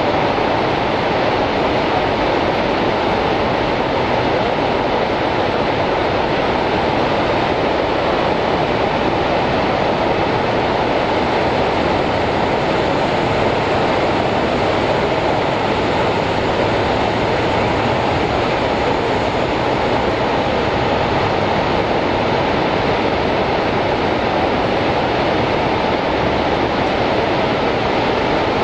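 The American Falls at Niagara crashing down in a loud, steady roar of falling water that never lets up.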